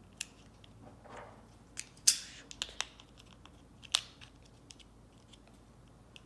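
AA batteries being pressed into a plastic battery holder: scattered sharp clicks and snaps of plastic and metal contacts, the loudest about two seconds in, with softer handling rustle between them.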